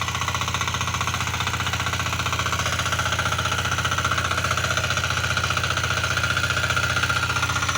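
Small diesel engine of a mini ploughing machine running steadily with a fast, knocking diesel clatter. It gets a little louder from about three seconds in.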